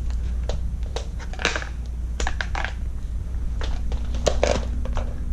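Hospital bed's power cord and fittings being handled: scattered small clicks, taps and rustles over a steady low hum.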